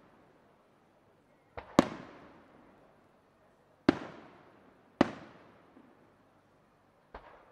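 Aerial firework shells bursting. Three loud, sharp bangs come about one to two seconds apart, each followed by a long rolling echo. A weaker bang comes just before the first and another near the end.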